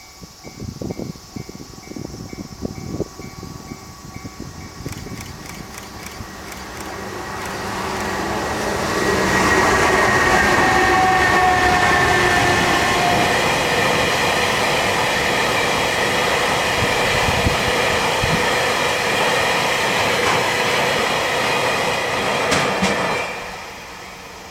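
Level crossing bell ringing in a pulsing two-tone pattern as a freight train hauled by an EH500 electric locomotive passes. The wheels knock heavily over the rail joints for the first few seconds. The noise of the Taki tank wagons then builds to a steady loud rumble with clacking wheels and a brief high squeal about ten seconds in, and stops abruptly near the end as the last wagon clears the crossing.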